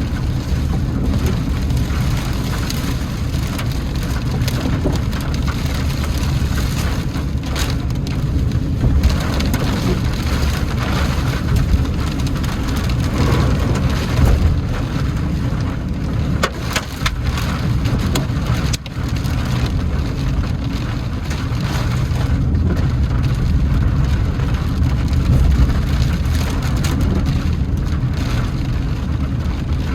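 Heavy rain beating on a moving car, with a steady low rumble from the car underneath and many sharp drop hits throughout.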